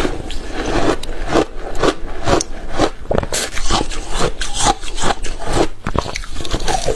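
Close-miked ice being bitten and chewed: a quick, irregular run of loud, sharp crunches and grinding scrapes as the pieces break between the teeth.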